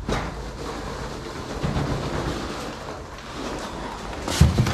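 Foam packing peanuts rustling and crunching as a cardboard box full of them is handled and dug through, with a low thump near the end as the box is set down.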